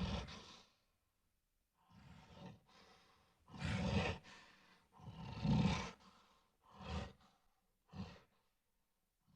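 Gorilla grunting and huffing: a run of about seven rough, breathy calls with short silent gaps between them. The loudest two come about four and five and a half seconds in, and the last ones are short huffs.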